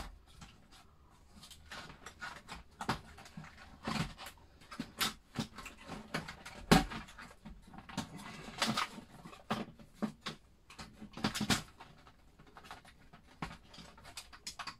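Irregular clicks and knocks of the Commodore Amiga A600's plastic case being handled and shifted, with cable plugs being pushed into its side ports.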